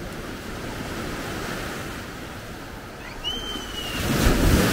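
Small ocean waves washing up onto a sandy beach in a steady hiss of surf, with a louder rush of surf and wind on the microphone near the end.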